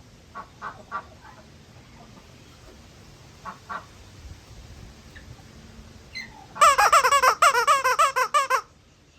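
Eclectus parrot calling: a few short soft calls, then a loud two-second run of rapid, wavering squawks near the end.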